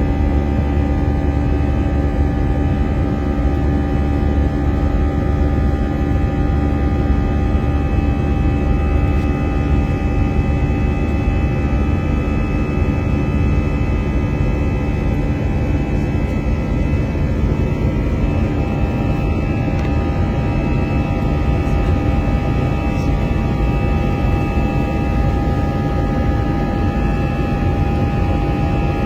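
Airbus A321 jet engines and airflow heard from inside the cabin while climbing after take-off: a steady low rush with several steady whining tones, which shift slightly in pitch about halfway through.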